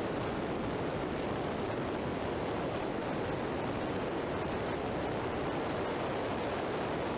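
Steady rush of wind buffeting the microphone, mixed with tyre noise on asphalt, from a camera mounted outside on the front bodywork of a vehicle travelling at highway speed.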